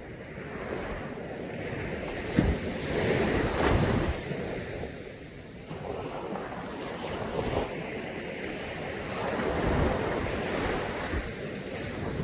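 Caribbean Sea surf breaking on a beach, the wash swelling up twice, with wind gusting on the microphone.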